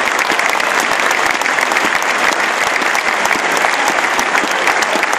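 Stadium crowd applauding steadily, a dense sustained patter of many hands clapping.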